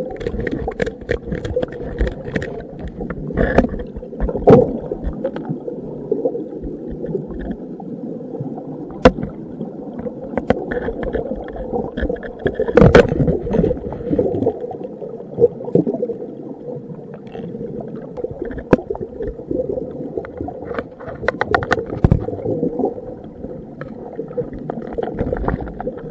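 Underwater scraping and tapping of a metal-tipped crevice tool against rock: scattered sharp clicks and scrapes, with a cluster of them a little before the end, over a steady muffled water rumble.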